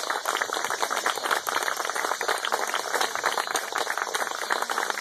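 A small crowd of guests applauding: many hands clapping at once in a dense, even patter.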